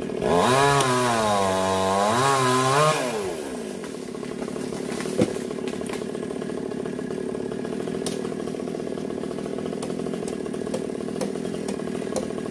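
Stihl chainsaw at full throttle for about three seconds, its pitch sagging and recovering as the chain bites into the wood, then falling back to a steady idle. A single sharp knock comes a couple of seconds after the revving stops.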